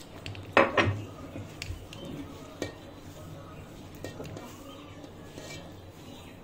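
A stainless steel mixing bowl clattering and knocking as flour dough is mixed by hand in it, with a loud double clatter about half a second in and lighter knocks and clicks after.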